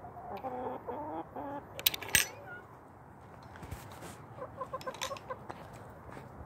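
Pet hen clucking, with a quick run of short clucks about four and a half seconds in. A couple of sharp knocks sound about two seconds in.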